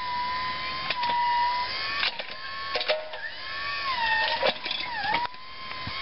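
Battery-powered backhoe's electric motor and hydraulic pump whining, the pitch sagging and recovering several times as the digging loads it. Scattered clicks and clunks come from the arm and bucket.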